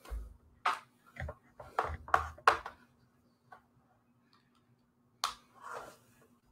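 A series of irregular clicks and knocks, about eight of them, some with a dull low thump. Most come in the first three seconds and two more about five seconds in, over a faint steady hum.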